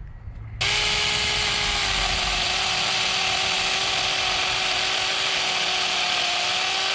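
Saker battery-powered 4-inch mini chainsaw starting abruptly about half a second in and running at a steady high speed, a constant motor whine over the hiss of the chain.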